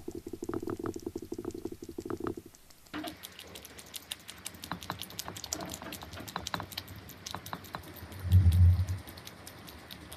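A cat eating wet food from a bowl: rapid wet clicks of its tongue lapping and its teeth chewing, with a brief low thud about eight seconds in.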